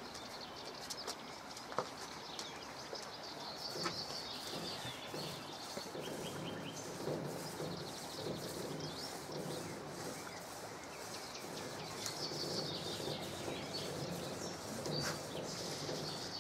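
Small birds chirping and twittering in short calls and quick trills over a faint background hum.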